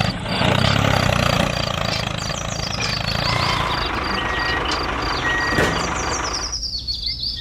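A truck engine running steadily with a high beep repeating about three times a second, like a reversing alarm; near the end the engine sound thins out.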